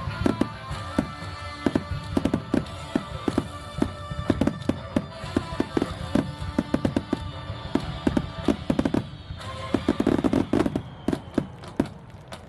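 Fireworks going off in rapid succession, many sharp bangs and crackles, with music playing along. The bangs come thickest about ten seconds in, and the music fades near the end.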